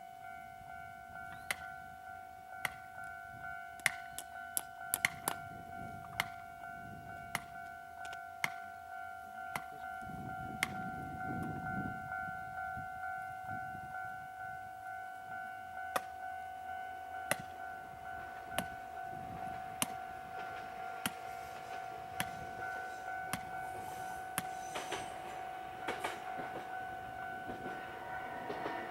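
Japanese level-crossing warning bell ringing in a rapid, even repeating clang, with irregular sharp knocks from nearby construction work. Near the end the rumble of the approaching railcar grows under the bell.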